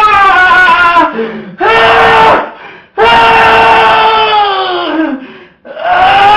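Loud wailing cries from a voice, four long held cries in a row, each falling in pitch as it trails off, with short gaps between.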